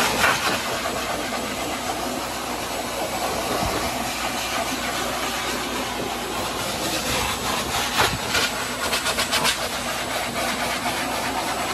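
Forced-air pet dryer blowing a steady, hissing stream of air through its hose nozzle onto a wet dog's coat. About two-thirds of the way in the sound turns fluttery for a couple of seconds.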